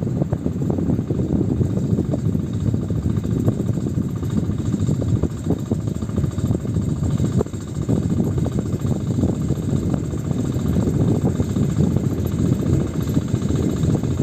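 Engine of a sanedo, a homemade farm vehicle, running steadily with a dense low chugging, with a brief dip about seven and a half seconds in.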